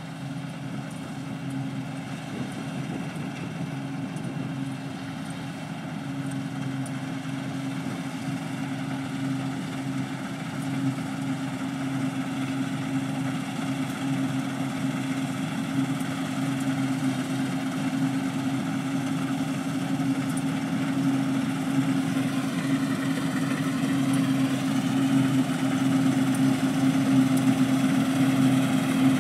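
New Holland TF78 combine harvester running under load with a steady engine hum, growing gradually louder.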